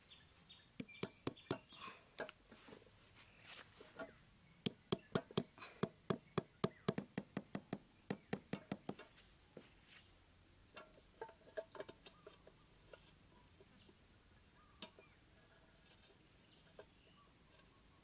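A run of sharp taps and knocks while the sticks of a pot-and-stick bird trap are set into the ground. The taps are scattered at first, quicken to about four a second around the middle, then thin out to a few stray taps.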